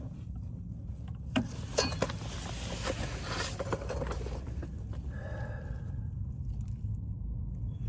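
A few sharp knocks, then scraping, as snaplock sheet-metal duct is handled and fitted in a cramped space, over a steady low rumble.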